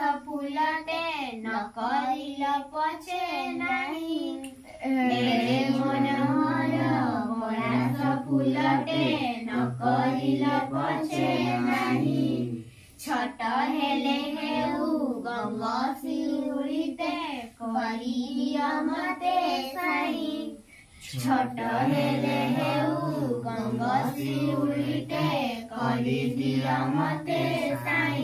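Girls singing a song with no instruments to be heard, in long held phrases with short breaks between them.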